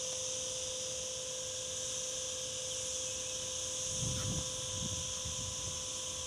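Steady high-pitched buzzing of insects, with a faint constant hum underneath. About four seconds in there is a brief low rumble.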